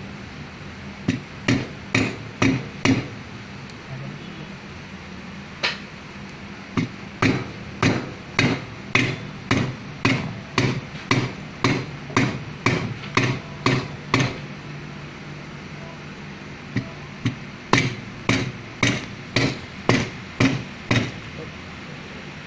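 Hammer blows on a steel tube driver, tapping an oil seal down into a Komatsu SAA6D140E-5 water pump housing: sharp metallic strikes about two a second, in three runs separated by short pauses.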